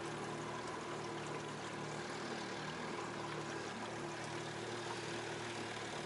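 Small jon boat's motor running steadily with a constant hum, over the rushing of water along the hull as the boat moves.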